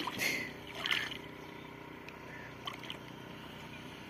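A hooked carp splashing in the shallows at the water's edge as it is landed by hand: two short bursts of splashing in the first second, then quieter lapping water with a few faint ticks.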